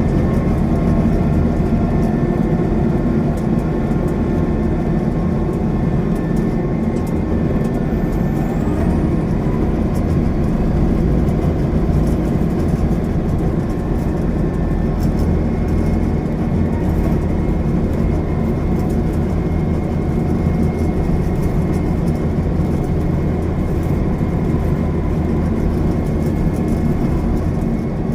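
Rice combine harvester's engine running steadily under load.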